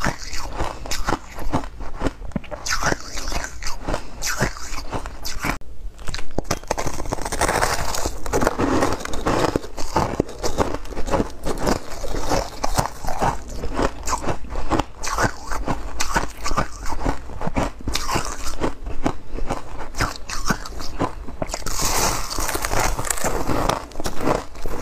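A person biting and chewing chunks of refrozen freezer-frost ice: a dense, irregular run of crisp crunches close on the microphone.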